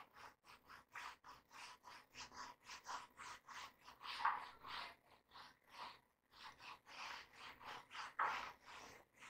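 Whiteboard duster rubbing marker writing off a whiteboard in quick back-and-forth strokes, about three a second, faint and scratchy.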